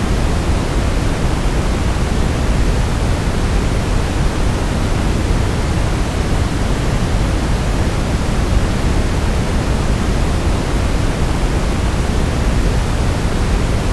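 Brown noise: a steady, even rushing hiss weighted toward the low end, with no change throughout.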